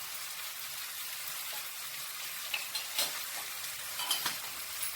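Onion-tomato masala with freshly added spice powders frying in oil in a pan, with a steady sizzle. A spoon clicks against the pan a few times while stirring, from about halfway through to near the end.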